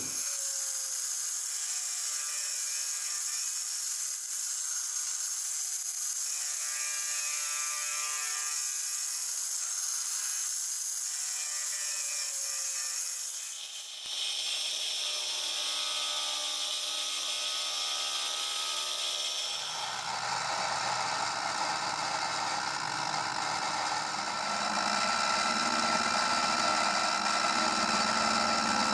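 Grizzly benchtop mini mill running with a 5/16 end mill cutting out the web of a clamp slot under fine feed. The sound changes abruptly about halfway through and turns fuller and deeper a few seconds later.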